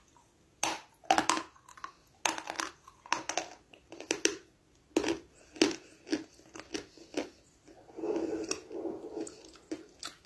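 Close-up chewing of a piece of dry pressed Turkestan edible clay: sharp, irregular crunches about twice a second as the clay is bitten and broken up, turning softer and denser near the end.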